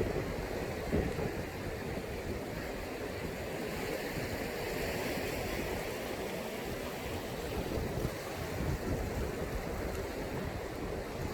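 Sea waves breaking and washing on the shore as a steady surf hiss, with one wash swelling louder about four to six seconds in. A low, uneven rumble runs under it.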